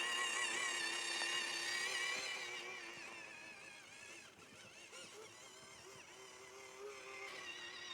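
Small electric motor and gearbox of a WPL C84 RC truck whining while it drives. The pitch wavers slightly with throttle. The whine grows fainter through the middle and louder again near the end.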